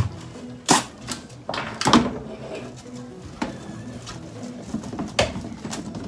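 Kitchen clatter during cooking: about half a dozen sharp, irregular knocks and clacks of utensils and cookware being handled.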